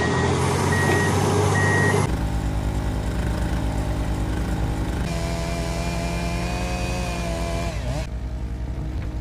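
Heavy diesel construction machinery running: a reversing alarm beeps steadily over the engine for the first two seconds, then the sound cuts abruptly to a low, fast-pulsing engine, and cuts again a few seconds later to an engine with a steady whine that drops in pitch just before another cut.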